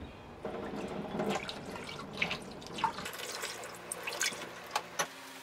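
Tap water running and splashing into a stainless-steel sink as the kanna blade is rinsed under it, with a few sharp clicks near the end. The water stops about five seconds in.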